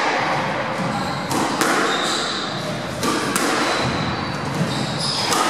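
Squash rally: the ball knocking sharply off rackets and the court walls every second or so, often in quick pairs, with short high squeaks of shoes on the wooden court floor, echoing in the enclosed court.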